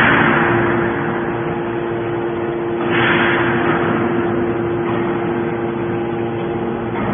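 Hydraulic baler running, with a steady motor and pump hum. Two swells of hissing noise come over it, one at the start and one about three seconds in.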